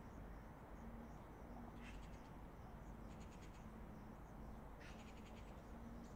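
Faint, steady low rumble of distant highway traffic, with a faint low hum pulsing on and off. Small birds chirp in brief rapid trills about three times.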